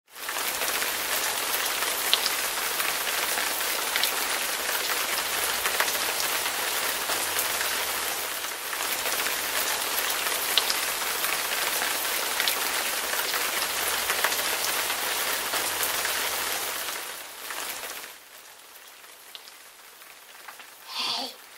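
Heavy rain pouring down, a dense steady hiss scattered with the ticks of single drops. It cuts off suddenly about eighteen seconds in, leaving a much quieter room, and a short rising sound comes near the end.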